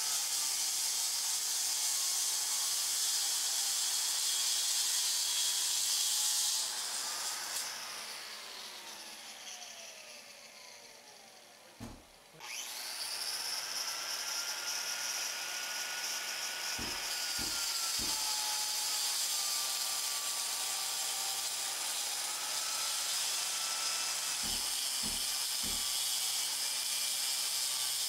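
A Bosch dust-collecting masonry grinder, with a HEPA vacuum attached, cutting along the mortar bed joints of a hard fireplace brick to free it for removal. Its whine dies away with falling pitch about a quarter of the way through, then starts again sharply just before halfway and runs steadily; a few low knocks come in two groups of three in the second half.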